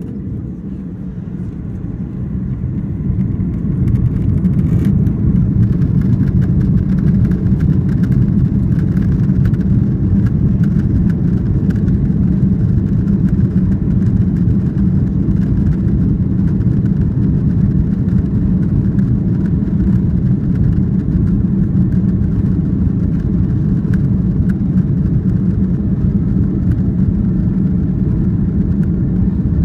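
Airbus A340-600's four Rolls-Royce Trent 500 engines spooling up to take-off thrust, heard inside the cabin: a low roar that swells over the first four seconds, then holds steady and loud through the take-off roll, with runway rumble beneath it. A sharp click sounds about five seconds in.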